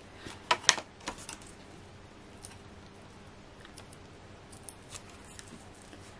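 Card stock being handled and pressed into place: a few sharp crackles and taps in the first second and a half, then only faint scattered ticks.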